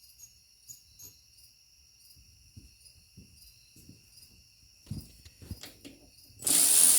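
Faint clicks and knocks of tools being handled, then near the end a loud, steady hissing whir from a power ratchet running on a handlebar clamp bolt.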